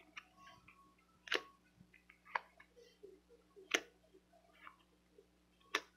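Quiet, sharp clicks and light handling of tarot cards being drawn and laid down, with three louder clicks about a second and a half in, just under four seconds in, and near the end.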